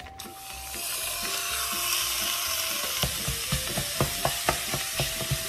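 Raw ground beef sizzling loudly as it lands in a hot stainless-steel saucepan. From about three seconds in, a spatula clicks and scrapes against the pan several times a second as the meat is broken up.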